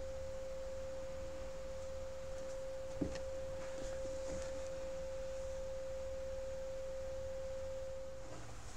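A steady pure tone held at one pitch, fading out near the end, with a faint click about three seconds in.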